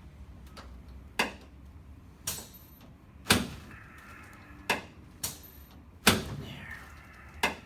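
Chiropractic adjustment thrusts on a patient lying face down on a treatment table: seven sharp clacks about a second apart.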